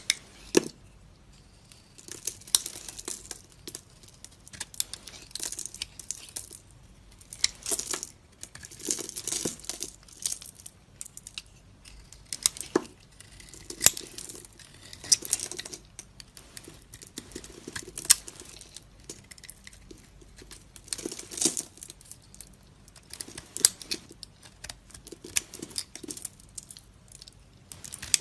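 Knife cutting and carving dry soap: repeated crackly, crunching strokes a second or two long with short pauses between, with sharp clicks scattered through.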